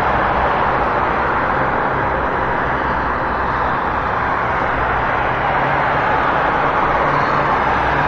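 City street traffic noise: a steady wash of road traffic with a low engine rumble underneath.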